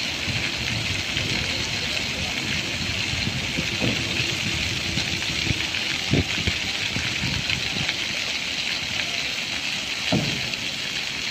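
Ground-level plaza fountain jets spraying up from grates and splashing back onto wet paving, a steady hiss of falling water.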